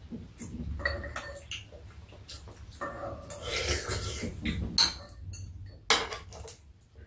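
Metal spoons and chopsticks clinking and scraping against ceramic bowls and a frying pan while eating, a string of short sharp clinks with the loudest about five seconds in.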